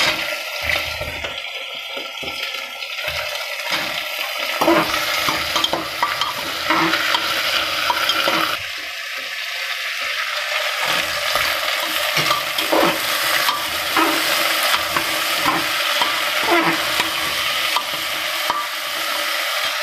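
Potatoes, peas and chopped vegetables sizzling in hot oil in an aluminium pressure cooker, stirred with a metal ladle that scrapes and clinks against the pot again and again. The sizzle grows louder about three seconds in.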